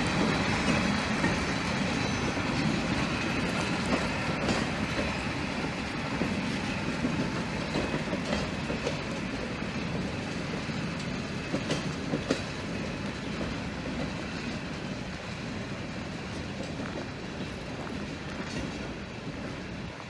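Train of open-sided passenger cars rolling slowly past on the rails: a steady rumble with occasional clicks from the wheels, gradually getting quieter.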